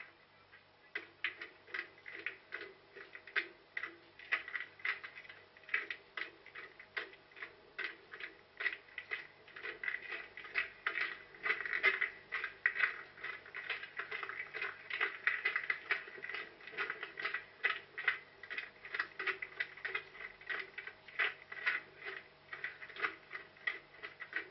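Running footsteps, a steady rhythm of about two to three footfalls a second, starting about a second in.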